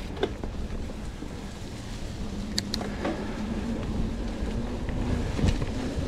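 Hardtail mountain bike rolling over a dirt singletrack: steady rumble of the tyres on the trail and air rushing over the camera microphone, with a couple of sharp clicks from the bike about two and a half seconds in.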